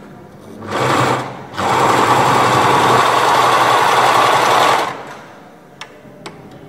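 Willpex WP653 household sewing machine stitching a zigzag test seam: a short run of under a second, a brief stop, then a steady run of about three seconds before it stops. Two light clicks follow near the end.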